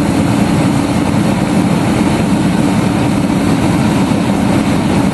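Dayton 3VE50 125,000 BTU forced-air kerosene heater, just lit and blowing: its fan and burner give a loud, steady, even rush of noise, heaviest in the low range.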